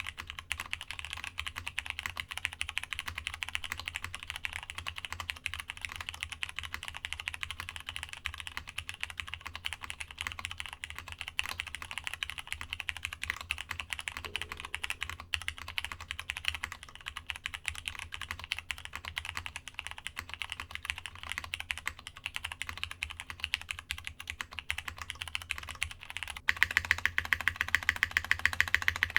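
Continuous fast typing on a Masjewerke K-III mechanical keyboard with plateless Cherry MX Brown switches, GMK keycaps and brass internal: a dense stream of keystroke clacks. About 26 seconds in, the board changes to modded DCS keycaps with polycarbonate internal, and the clacks turn abruptly louder and brighter.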